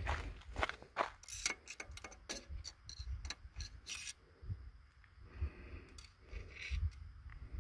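Footsteps crunching on dry, stony dirt and gravel: a quick run of sharp crunches in the first half, thinning to a few scattered steps later.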